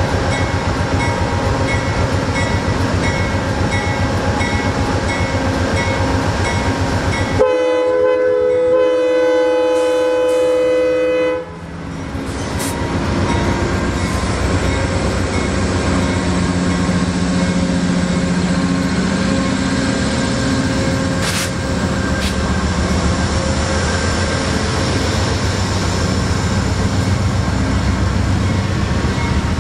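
Amtrak passenger train rolling by close, with steady wheel and rail noise. About seven seconds in, a locomotive air horn sounds one held chord for about four seconds and cuts off sharply. From about twelve seconds, Amtrak P42DC diesel locomotives pass close with their engines running under load.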